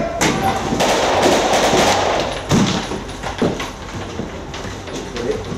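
Several sharp bangs and thuds over a dense rumble and a low steady drone.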